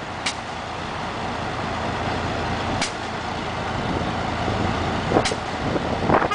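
City bus diesel engine running close by, a steady low hum under street noise, with three brief sharp clicks or hisses spread through it.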